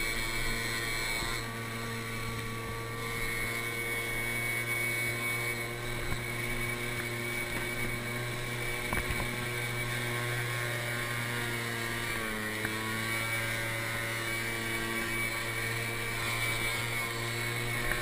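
Honda scooter's small engine running steadily while riding, a constant engine drone. Its pitch dips briefly about twelve seconds in and again near the end as the revs ease.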